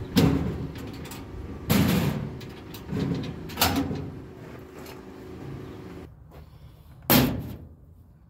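Five heavy knocks at uneven intervals, each with a short hollow ring.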